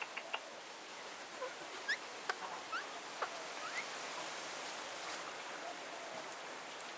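Parrots in an aviary making small sounds: a quick run of short clicks at the start, then a few short, upward-sliding chirps and single clicks over the next few seconds, over a steady background hiss.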